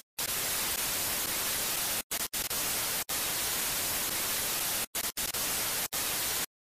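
Steady white-noise static hiss, like a detuned TV, cutting out abruptly to dead silence several times: at the start, around two seconds in, about three seconds in, near five and six seconds, and just before the end.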